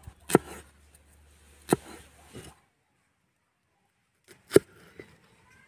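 Large knife chopping red onions on a wooden stump chopping block: single sharp chops spaced about a second apart, three in the first half, then a silent gap of about a second and a half, then two more chops near the end.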